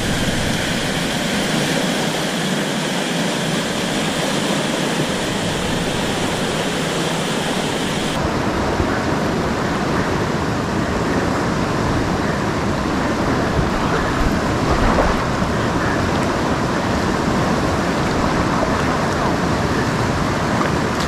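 River rapids rushing steadily. About eight seconds in, the sound shifts abruptly to a deeper rush, with less hiss and more low rumble.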